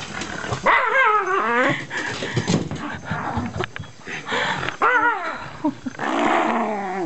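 Shiba Inu growling and whining in excited play, in several wavering bursts with short clicks in between.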